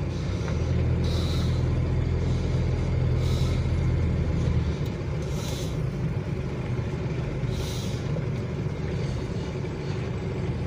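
A 1981 Plymouth Reliant K wagon's Mitsubishi 2.6-litre four-cylinder engine running while the car is maneuvered at low speed, heard from inside the cabin. Its deep drone eases about halfway through. Short hissing scrapes come about every two seconds.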